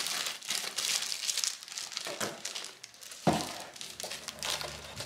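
Plastic wrap crinkling and rustling as a rolled diamond-painting canvas in its plastic sleeve is handled and packed into a tall cardboard box, with a thump about three seconds in.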